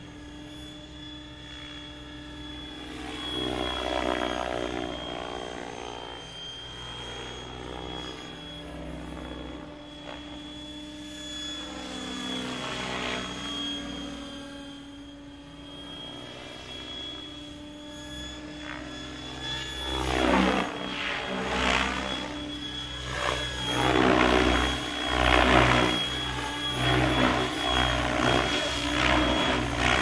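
Electric Mikado Logo 600 RC helicopter in flight, with a steady high motor whine over the rotor noise. The sound swells and sweeps as the helicopter moves, and grows louder in the second half in repeated surges of rotor noise.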